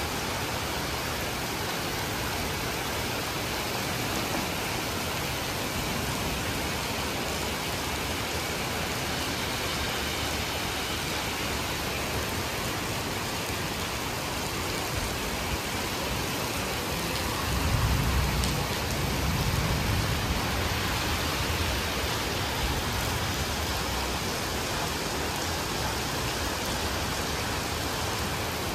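Very heavy rain pouring onto wet stone paving, a dense, steady hiss of splashing drops. About two-thirds of the way through, a low rumble swells for a few seconds.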